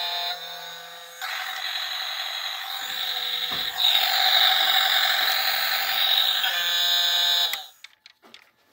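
Battery-powered light-up toy cruise ship running: a tinny electronic tune and sound effects from its small speaker, over a mechanical whirr. The sound cuts off suddenly near the end as the toy is switched off.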